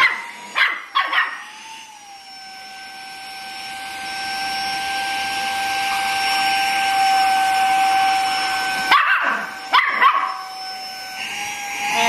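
Saker 3-in-1 handheld mini vacuum running with a steady high whine that drops in pitch about two seconds in, grows louder, and climbs back up near the end. A dog barks several times at the start and again around nine to ten seconds in.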